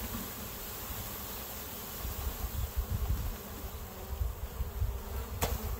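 Package of honeybees buzzing as they are shaken and dumped out of their box into a hive, over a low, uneven rumble. A couple of sharp knocks near the end.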